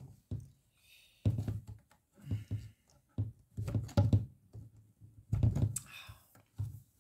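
White plastic tubes and connectors of an embroidery frame stand being handled and pushed together: irregular knocks and thunks, about six over several seconds, with short scrapes as parts slide into the fittings.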